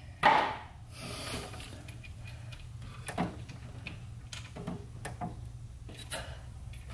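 Hand-tool handling noise at an engine's spark plug hole: a short scrape just after the start, then scattered light clicks and taps of a metal extension being worked in the hole, over a low steady hum.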